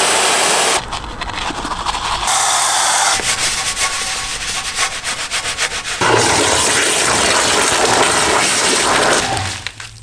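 Car being washed: hissing water spray and rubbing, scrubbing strokes on the bodywork. The sound changes abruptly several times, as in a series of short cuts.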